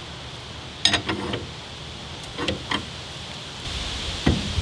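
Steel hand tools clinking and knocking as a wrench is set on and worked against the centre bolt of a three-jaw puller fitted to an old VW brake drum: a few sharp metallic clinks, the loudest about a second in, and a heavier knock near the end.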